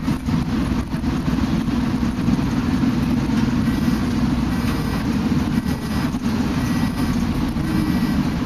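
Shuttle bus driving along, heard from inside the passenger cabin: a steady low engine and road drone.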